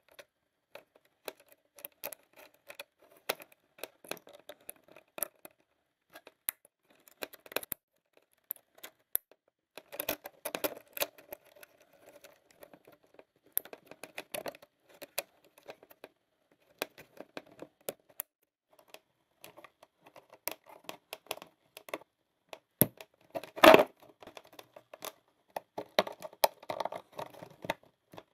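Irregular small clicks, taps and short scraping or rustling of parts being handled at a workbench, with one louder knock about three-quarters of the way through.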